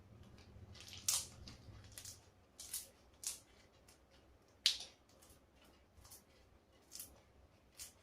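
Homemade glue slime being squeezed and worked by hand: a string of short, irregular wet squishes and sticky pops, the loudest just under five seconds in.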